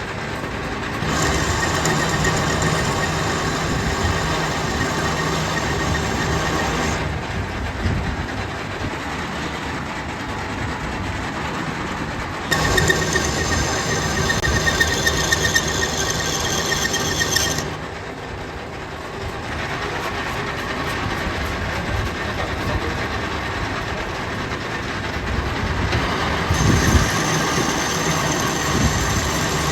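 Metal lathe running while threading a shaft, a steady machine sound throughout. Three times, for about five seconds each, it turns louder and harsher with a higher grinding edge.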